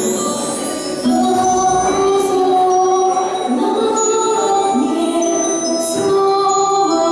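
Music playing: a melody of long held notes that step up and down, opening with a bright, high chiming flourish and growing louder about a second in.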